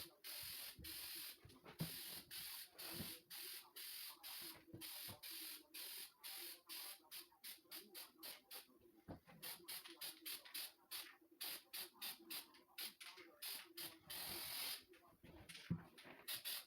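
Herculiner truck bed liner being sprayed in many short hissing bursts, a few per second, with one longer spray near the end.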